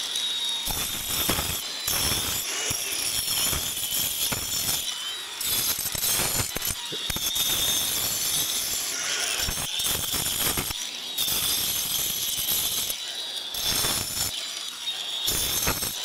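Cordless angle grinder cutting into the mortar joints of face brickwork: a steady high motor whine under a gritty grinding noise that grows and fades as the disc is worked along the joint.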